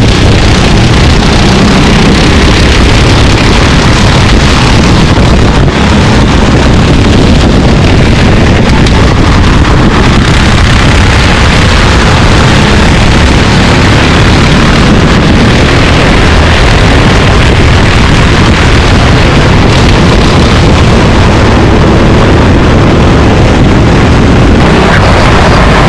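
Racing kart engines running at speed, loud and steady without letting up.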